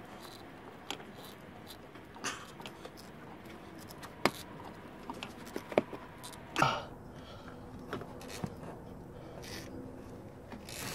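Scattered small clicks and rubbery scrapes from a hand twisting and tugging a stuck rubber hose off the CVT cooler's metal outlet pipe, with one louder scuff about six and a half seconds in, over a faint steady background hum.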